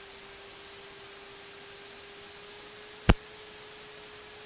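Steady electronic hiss with a faint steady hum, the background of an aircraft intercom audio feed, with no engine sound coming through. One sharp click about three seconds in.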